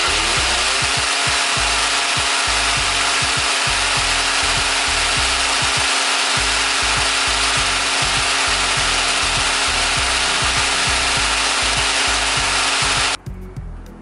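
Electric drill boring into a brick wall: the motor winds up at the start, then runs steady at full speed with the bit grinding into the masonry, and stops suddenly near the end.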